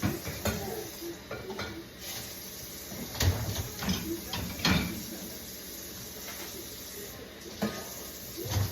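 Dishes and kitchenware clattering and clinking as they are handled during dishwashing: a string of irregular knocks, loudest in the middle, over a steady hiss.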